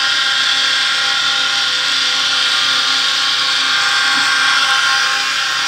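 12 V electric motor driving a heavy gear reducer, running steadily on battery power with a continuous whine.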